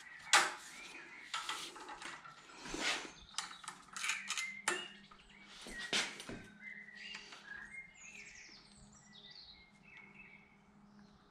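Metal tool clinks and knocks as a breaker bar, socket and torque-angle gauge are fitted to an engine bolt, a sharp clink about a third of a second in the loudest. Small birds chirp in the background in the second half.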